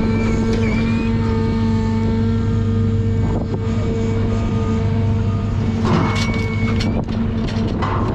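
John Deere 1010G forwarder's diesel engine running steadily under load, with the crane hydraulics whining as the grapple swings a bundle of spruce logs over the bunk. Logs knock onto the load about six seconds in and again near the end.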